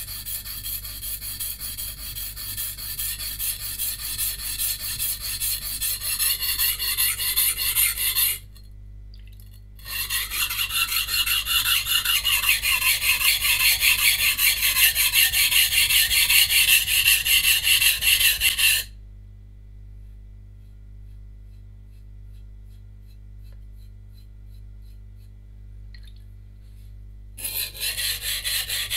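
Santoku knife blade of VG10 steel stroked rapidly back and forth on a 180-grit coarse whetstone, a gritty rhythmic scraping as the edge is ground back to remove chips. The scraping stops briefly about eight seconds in, then again for about eight seconds after the middle, leaving only a faint hum, before starting again near the end.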